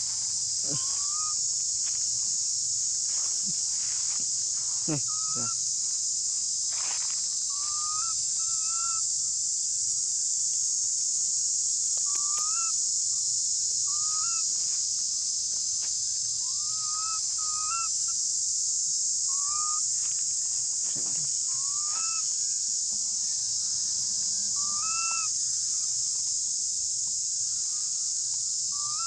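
Infant long-tailed macaque giving short, rising, squeaky calls to its mother, one every second or two, over a steady high hiss that is the loudest sound throughout.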